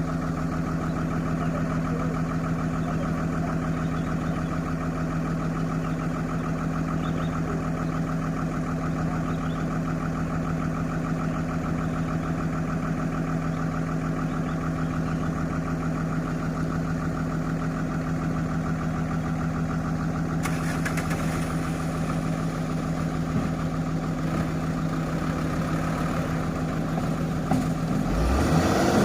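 Heavy diesel engine of the sand-loading machinery (excavator or dump truck) idling steadily. Near the end the steady hum breaks off into a louder, rougher sound.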